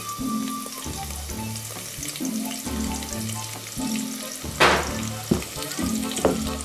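Sliced onions frying in hot oil, sizzling steadily, with a sharp louder flare of sizzle about four and a half seconds in and two smaller ones after as more onion drops into the oil. Background music with a steady beat plays underneath.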